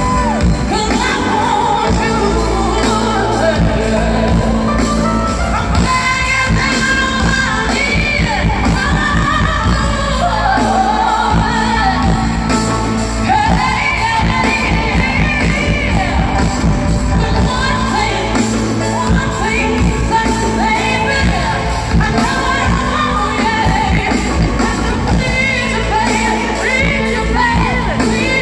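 A woman singing a ballad live with a handheld microphone, in long, wavering, melismatic lines over a steady, sustained low accompaniment.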